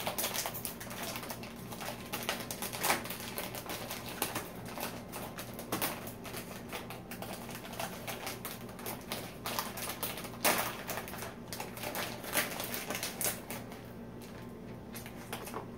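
Snack bag crinkling as it is handled and torn open by hand: a dense, irregular crackle with a few sharper crackles.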